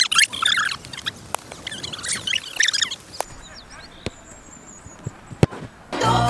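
Small birds chirping for the first few seconds, then a football struck hard: one sharp thud about five and a half seconds in, with a couple of lighter knocks before it.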